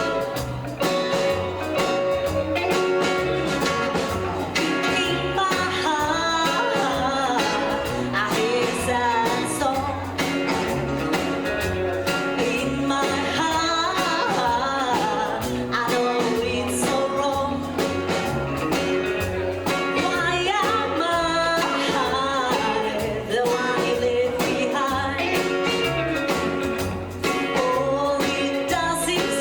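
Live rockabilly band playing a slow, calmer number, a singer's voice over the band with a steady beat.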